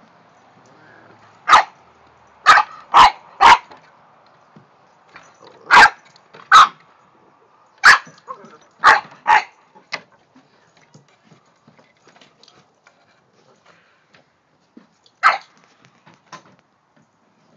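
Puppy play barking: about ten short, sharp barks, coming in quick bunches over the first ten seconds, then one more near the end.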